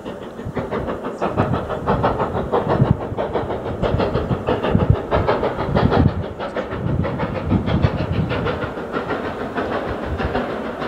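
LNER B12 4-6-0 steam locomotive approaching under power, its exhaust beating in a rapid, even rhythm.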